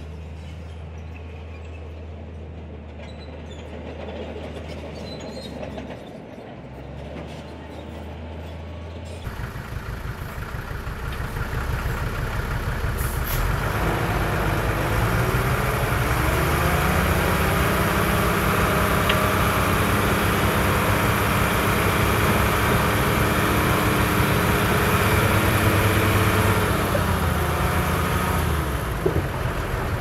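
Komatsu bulldozer's diesel engine: a low, steady hum that about nine seconds in picks up and builds over several seconds to a loud, steady working run, easing off again near the end.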